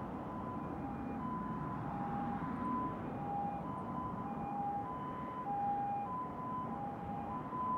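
Japanese ambulance siren in the distance, sounding its two-tone "pee-po": a higher and a lower note alternating about every two-thirds of a second. Under it is a low steady rumble from a train running on the line.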